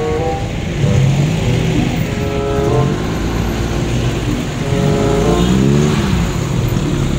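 Street traffic and running vehicle engines, heard from inside a car's cabin, with a steady low rumble. Several pitched sounds come and go over it, some held level and some bending up and down in pitch.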